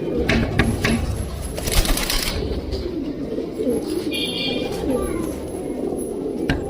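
A flock of domestic pigeons cooing, many low calls overlapping continuously, with a short rustle about two seconds in.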